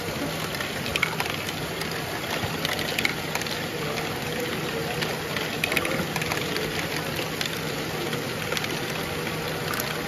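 LEGO Great Ball Contraption modules running: many small plastic balls clicking and rattling through the track over a steady mechanical whir.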